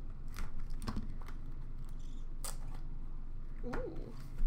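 Cardboard hockey card box being handled and opened by hand: scattered clicks and taps of card stock, with a thump near the end.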